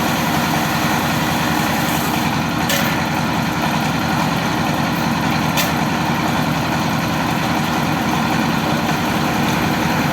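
Sawmill saw machinery running steadily with a constant engine drone, with a couple of faint sharp clicks.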